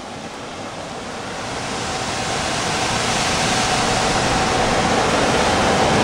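Old furnace centrifugal blower fan running at high speed: a steady rush of air that grows louder over the first few seconds, with a faint whine coming in about halfway.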